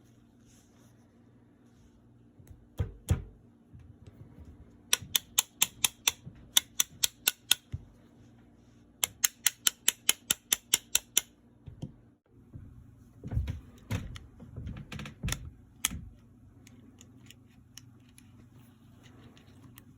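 Two runs of rapid, evenly spaced sharp metallic clicks, about five a second, with a couple of knocks before them and a few heavier clunks after, from hand work on the parts of an Erma LA22 during reassembly.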